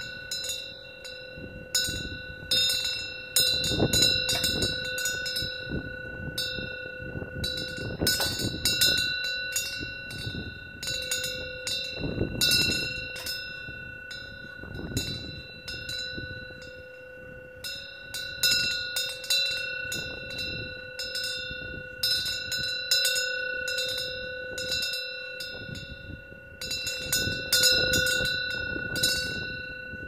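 Korean temple wind bell (pungyeong), a metal bell whose clapper hangs a fish-shaped wind sail, struck again and again in irregular clusters as the wind swings the fish, its ringing hanging on throughout. Gusts of wind rumble underneath, swelling and dying away several times.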